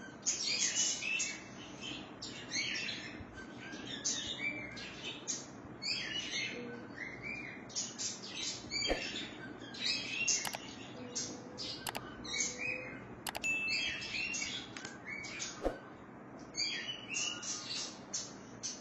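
Many small birds chirping and twittering continuously in quick, overlapping calls. A few sharp clicks come through between about nine and sixteen seconds in.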